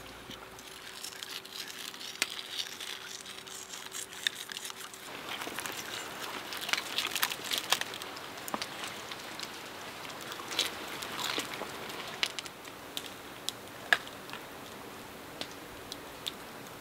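Scattered crackles and sharp clicks over a steady soft hiss: a wood fire crackling, with small knocks of a knife and dishes during a meal. The crackling gets busier about five seconds in, and one sharper click comes near the end.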